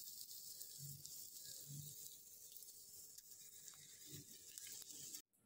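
Near silence: faint room tone with a thin hiss and a few faint low blips, cutting to dead silence near the end.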